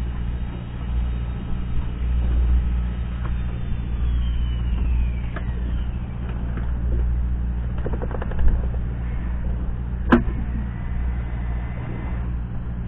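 Fishing boat's motor running steadily with an even low hum. One sharp knock about ten seconds in.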